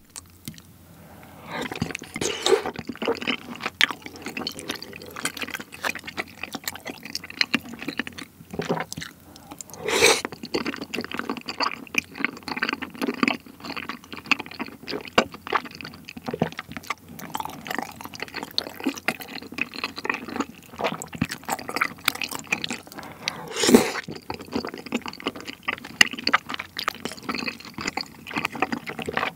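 Close-miked eating sounds: wet chewing and lip smacking of chewy rice cakes and chicken in spicy tteokbokki sauce, as a dense run of small sticky clicks. There are two louder wet sounds, about ten seconds in and again near the end.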